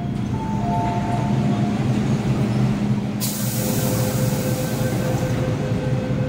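MTR M-train standing at an underground platform, its equipment giving a steady low hum. A two-note electronic chime repeats through the first couple of seconds. About three seconds in, a loud hiss starts suddenly and fades out about two seconds later, with a steady whine coming in under it.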